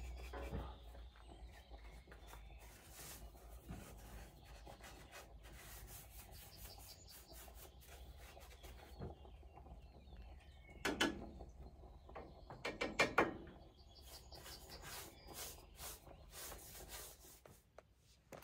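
Paintbrush scrubbing wood impregnant onto wooden boards: a run of irregular rubbing strokes, with two louder short sounds about eleven and thirteen seconds in.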